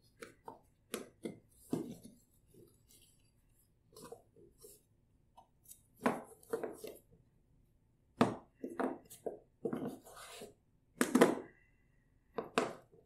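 Pieces of wooden toy train track knocking and clacking as they are handled and fitted together, in irregular clusters of taps with short pauses between; the loudest knock comes about eleven seconds in.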